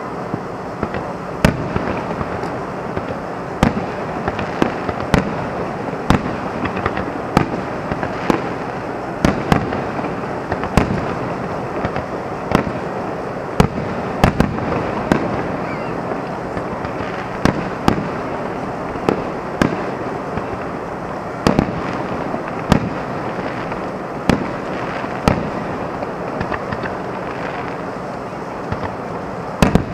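Aerial fireworks shells bursting: a sharp bang roughly every second, at uneven intervals, over a steady background of noise.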